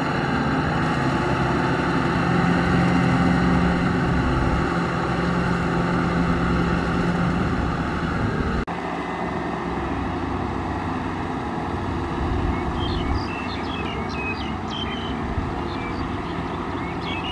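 Kubota M6040SU tractor's diesel engine running steadily under load as it pulls a rotary tiller through flooded paddy mud. The sound changes abruptly about nine seconds in and is a little quieter after that.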